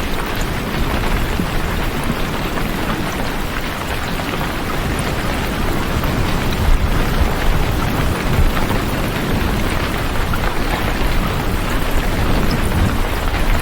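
Heavy rain falling steadily: a dense, even hiss with a deep low rumble underneath.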